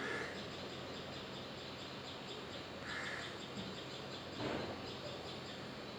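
Birds calling and chirping: two short, louder calls, one at the start and one about three seconds in, over a steady run of faint high chirps.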